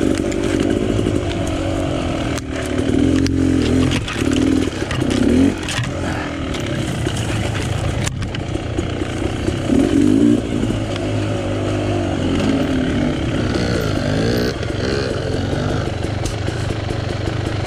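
Dirt bike engine running at low speed on a rough trail, the throttle opened in short revving bursts a few times, with occasional knocks and clatter.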